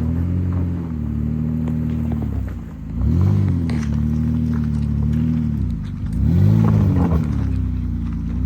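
Ford Escape's engine running under load off-road, its pitch surging up and back down twice, about three and six and a half seconds in, with scattered clicks and knocks over it.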